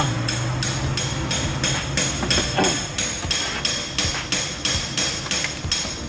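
Rapid, even electronic ticking with a ringing high tone, about four or five beats a second, from the Mazda Fighter truck's dashboard warning buzzer as the ignition is switched on; it stops shortly before the end.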